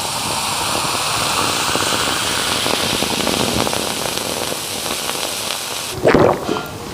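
Food sizzling and crackling in hot oil, a dense steady spitting hiss. It cuts off about six seconds in, followed by a few louder sounds.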